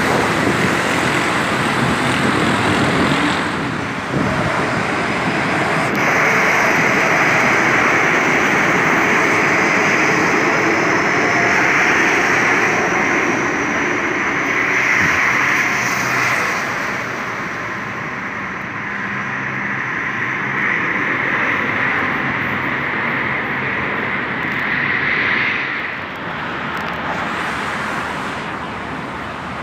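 Steady rushing noise of road traffic on a busy multi-lane avenue.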